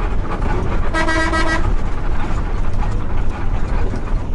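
A vehicle horn toots once, about a second in, for about half a second, over the steady low rumble of a moving bus's engine and road noise.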